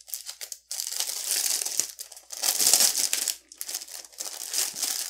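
Clear plastic wrapping crinkling loudly as it is handled and pulled off a package, in several bursts with short breaks between them.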